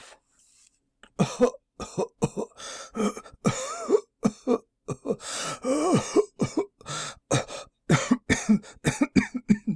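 A person coughing in a long fit: many short coughs in quick succession, starting about a second in, some carrying a voiced groan.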